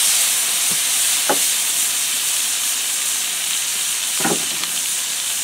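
Butter in a cast iron skillet sizzling over a wood fire, just after garlic, jalapeños, parsley, lemon juice and seasonings have gone in. It is a steady hiss with a few short pops.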